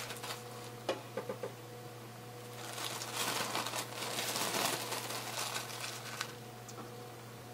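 Rustling and crinkling of a cloth stock bag as gloved hands pack chicken bones into it, with a few small clicks about a second in and the busiest rustling in the middle, over a steady low hum.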